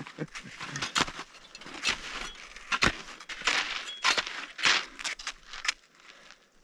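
Close-up rustling and sharp clicks of gear being handled at a backpack, along with the swish of ski strides on snow as a skier skins uphill.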